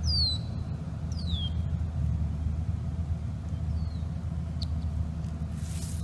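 Steady low rumble outdoors, with a bird giving short, high, falling whistle calls three times over it and a brief hiss near the end.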